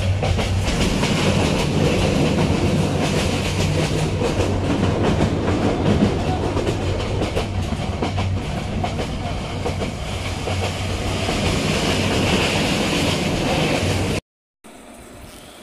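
Moving passenger train heard from inside the carriage: a steady running rumble with the wheels clattering over the rails. It cuts off suddenly about fourteen seconds in, leaving a much quieter hum.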